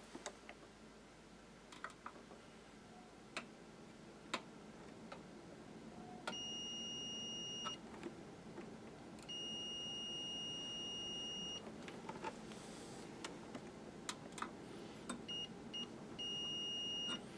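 Mastercraft digital multimeter's continuity beeper giving a high beep: two steady beeps of about one and a half and two seconds, then a broken, stuttering one near the end. Each beep is the probes finding a connection between the Variac's exposed metal and the plug's ground pin, showing the metal is grounded. Light clicks of the probes touching metal come in between.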